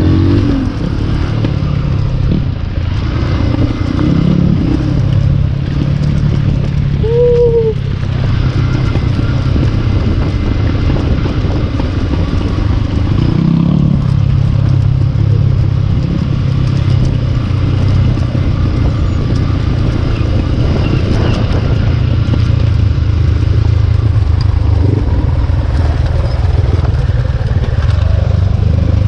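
Dirt bike engine running under way on an off-road ride, with the revs rising briefly a few times.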